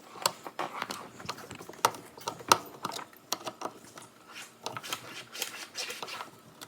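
Two screws being tightened with a Phillips screwdriver to clamp the power cord at a dishwasher's terminal box: a run of irregular light clicks and taps.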